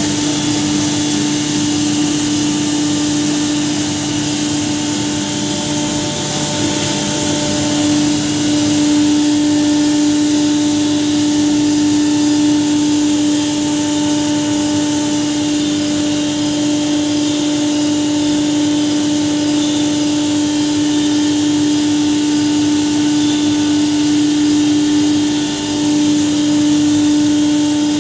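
Belt-driven impact pulverizer (hammer mill) running steadily while grinding turmeric: a constant hum with one strong steady tone over a rushing hiss of air through the mill and cyclone.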